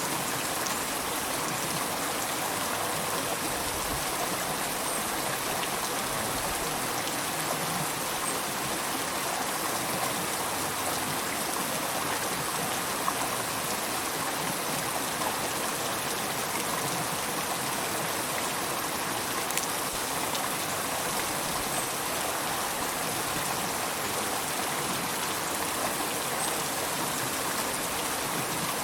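A gentle river flowing: a steady, even rush of running water that does not change, with a couple of faint ticks.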